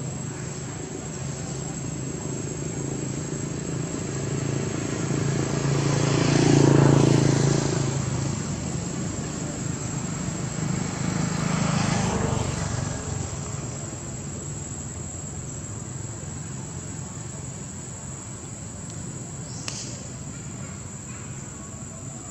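Engine of a passing vehicle: a motor hum swells to a peak about seven seconds in and fades away, with a second, smaller swell around twelve seconds, over a steady high insect buzz.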